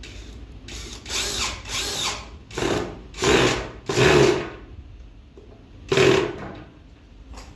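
Yellow cordless drill run in six short bursts, each under a second, working into the edge of a white cabinet board.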